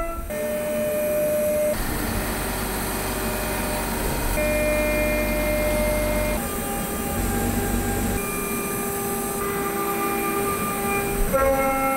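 CNC router spindle with a small end mill milling an aluminium part, a steady cutting noise with held whining tones that shift in pitch every couple of seconds as the cut changes.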